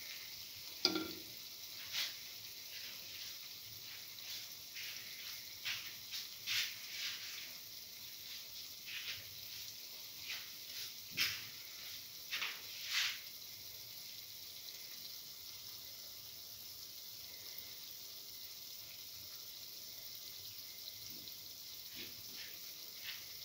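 Chickpea-flour garlic fritters frying in shallow oil in a cavity pan: a steady faint sizzle with scattered pops and crackles, busiest in the first half, then settling to an even sizzle.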